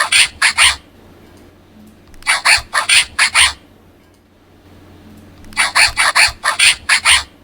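Meerkat calls played from a children's sound book's button speaker: three bursts of rapid, sharp chirping calls, four or five to a burst, a couple of seconds apart.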